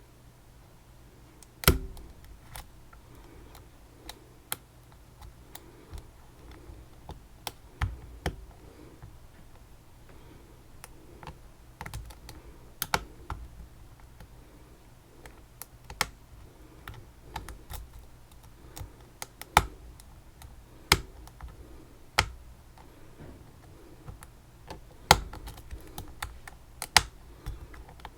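Irregular sharp clicks and taps of small metal lock parts and tools being handled, some much louder than others, with a faint steady hum underneath.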